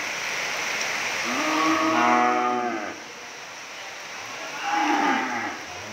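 Cattle mooing: one long moo starting a little over a second in, then a shorter moo near the end.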